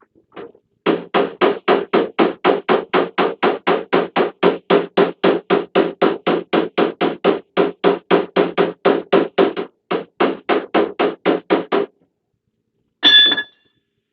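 Rapid, even hammer taps on the dented sheet-metal rear door panel of a Peugeot Boxer van, about four a second for some eleven seconds, beating out the dent. They stop, and about a second later comes one louder strike with a short ring.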